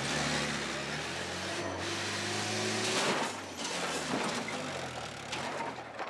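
FG15 forklift's engine running while the forklift is driven, its pitch rising and falling gently, with a brief clatter about three seconds in.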